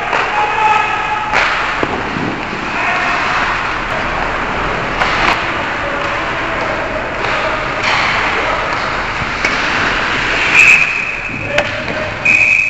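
Ice hockey game sounds: sticks and puck knocking and players shouting, with a referee's whistle blown twice near the end.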